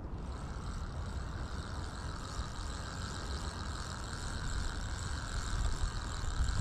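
Fixed-spool reel on a feeder rod being wound in steadily: a continuous whirr from the reel's gearing and rotor, over a low rumble.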